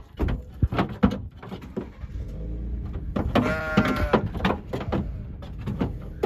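A sheep bleats once in the middle, a single wavering call, among repeated knocks and clatters of the wooden pallet crate as the ram shifts inside it on the truck bed.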